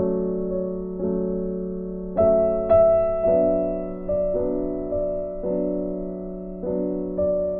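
Slow, gentle piano music: chords struck about once a second, each ringing out and fading, over a held low note.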